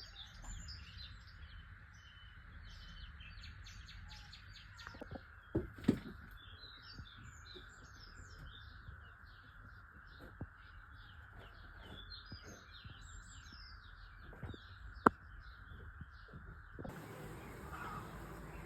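Many small birds chirping and twittering, over a steady background hiss. A few sharp knocks cut through: two close together about six seconds in and a louder single one near fifteen seconds. Near the end the birdsong stops abruptly and a different steady noise takes over.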